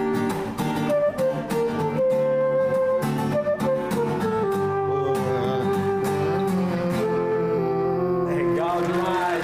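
Live band music: an instrumental passage of the song, with acoustic guitar strumming under a held, stepping melody line. A wavering voice-like line with vibrato comes in near the end.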